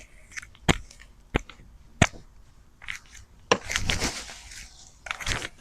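Digging through garden soil to lift potatoes: a few sharp knocks, then crunchy scraping and rustling of earth twice near the end.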